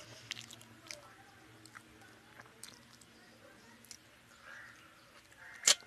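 Close-up mouth sounds of a person eating fish and rice by hand: wet chewing with scattered small clicks and smacks, and one sharp click near the end.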